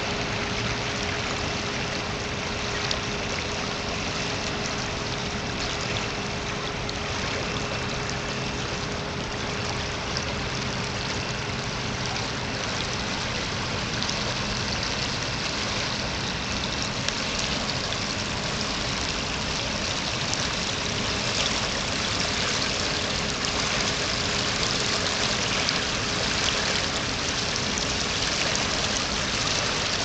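A swollen, muddy river in flood, rushing steadily past: an even wash of water noise with a faint steady hum beneath it, growing a little louder near the end.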